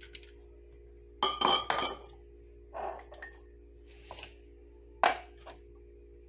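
Glass bottles and a large glass jar clinking and knocking as they are handled on a countertop. A quick cluster of clinks comes about a second in, and a single sharp knock near the end.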